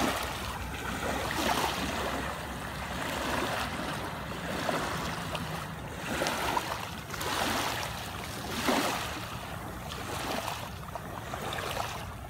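Small waves washing up and draining back over wet sand and shingle at the water's edge, the surf noise swelling and falling every couple of seconds, with rubber boots splashing through the shallows.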